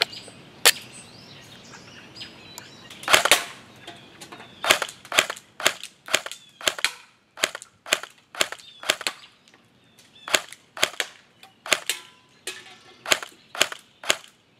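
Magpul PTS Masada airsoft electric rifle firing single shots, each a sharp snap. There is one shot, a louder shot or two about three seconds in, then a steady string of about twenty shots at roughly two a second.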